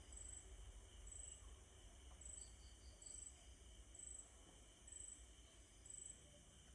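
Near silence with an insect chirping faintly, a short high chirp repeating about once a second, over a low hum.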